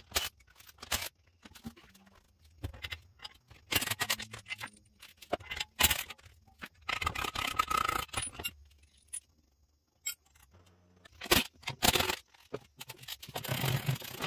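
Metal clinks, knocks and scrapes of a cordless impact wrench and hand tools working on a car's wheel and front suspension. They come in separate bursts with short pauses, several of them lasting a second or more.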